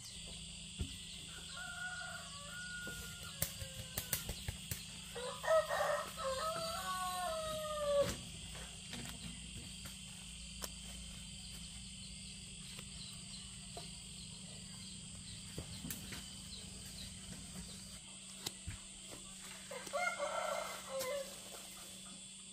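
Rooster crowing: one long crow about five seconds in, a fainter call before it and a shorter call near the end, over a steady high buzz of insects.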